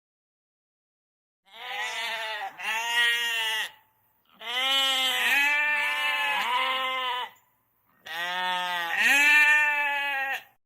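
Sheep bleating: three drawn-out calls of about two to three seconds each, with a quavering pitch.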